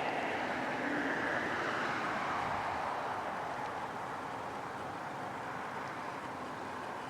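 Road traffic passing on a nearby bridge: a steady rushing of tyre noise that slowly sinks in pitch and fades as a vehicle moves away.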